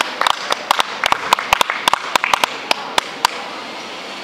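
A few people clapping: scattered, uneven hand claps, several a second, that stop about three seconds in.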